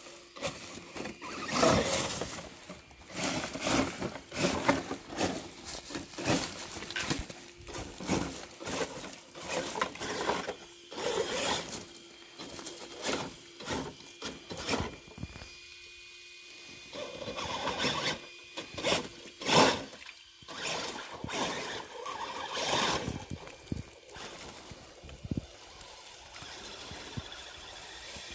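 Dry fallen leaves crunching and rustling in irregular bursts, with a faint steady whine from an RC crawler truck's electric motor and gears at times.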